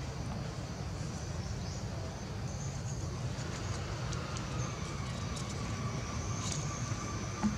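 Outdoor forest ambience: a steady low rumble with faint, thin, high-pitched drones that hold steady, a second, lower drone joining about three seconds in. A short knock comes near the end.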